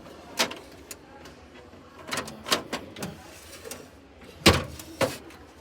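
Refrigerator doors and drawers being handled: a series of clunks and knocks as they are opened and shut, the loudest about four and a half seconds in.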